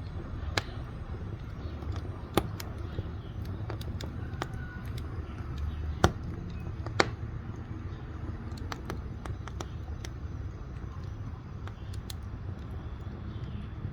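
Firewood burning in a wood-fired cook stove: a steady low rumble of flame with irregular sharp crackles and pops, the loudest pop about six seconds in and another about a second later.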